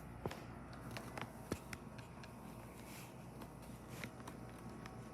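2011 Guardian 3-ton central air conditioner outdoor unit running, a steady low hum from its compressor and fan, blended with other air conditioners running around it. A few faint clicks come and go over the hum.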